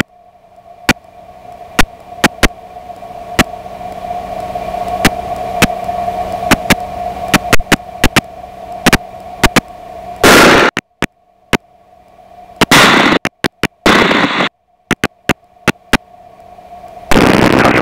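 Aircraft headset intercom and radio audio: a steady hum under hiss that slowly rises, with frequent sharp clicks and crackles. Near the middle and end, several loud bursts of rushing noise each cut off abruptly into dead silence, as the channel opens and shuts.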